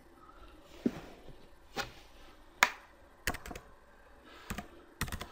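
Computer mouse and keyboard clicks as a value is typed into a software field: scattered sharp clicks about a second apart, with a quick run of clicks near the end.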